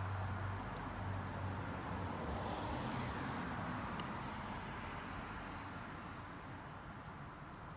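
Air rushing out of an off-road truck tire through its valve as it is let down, a steady hiss that slowly fades.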